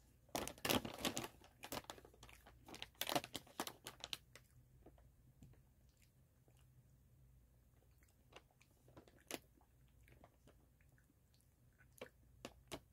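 Crunchy chewing of popped veggie and potato chips at the mouth, in close bursts during the first four seconds, then quieter, scattered crunches.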